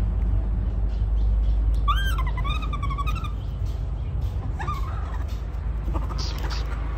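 Baby macaque calling with high, wavering coos: one long call about two seconds in, then shorter rising calls near five and six seconds.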